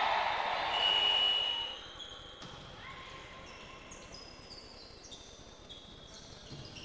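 Volleyball hall sound: a single steady whistle-like tone lasting about a second near the start over loud hall noise, then fainter court noise with brief high squeaks.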